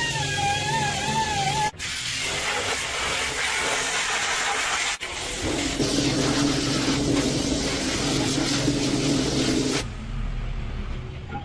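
Background music with a wavering melody, cut off after about a second and a half by a loud, steady hissing rush. A low hum joins the hiss about halfway through, and the hiss stops abruptly near the end.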